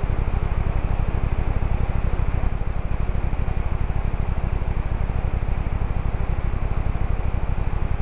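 Waterfall and river rapids: water rushing steadily over rocks, an even hiss with a heavy low rumble.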